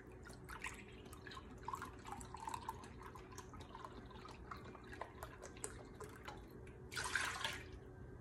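Chicken stock pouring in a thin stream from a carton into a glass measuring cup, trickling and dripping. About seven seconds in, the cup is tipped into the pan with a short splash of liquid.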